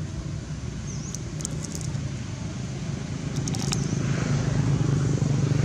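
A motor vehicle engine running steadily with a low hum, growing louder from about three seconds in as it nears. A few short, sharp clicks come through around one to two seconds in and again later.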